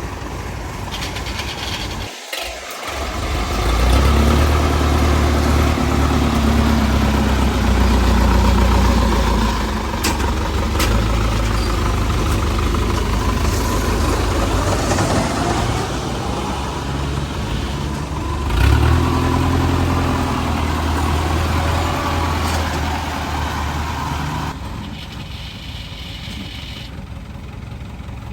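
Rice combine harvester's diesel engine running under load, revving up about four seconds in and again past the midpoint, with a brief drop in sound near the start.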